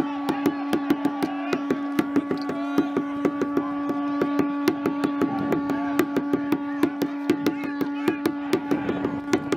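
Wooden spear shafts and round shields clacking and knocking in a Viking reenactment shield-wall fight, several sharp knocks a second, with scattered shouting. A steady droning tone holds underneath throughout.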